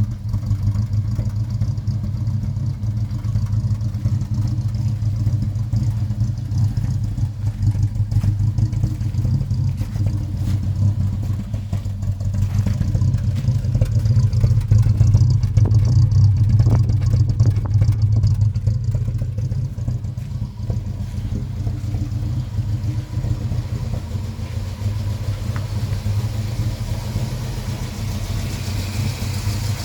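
Volvo B20 inline-four with twin SU HIF6 carburettors idling roughly, a little louder for a few seconds in the middle. The rough idle comes from fuel pressure set too high.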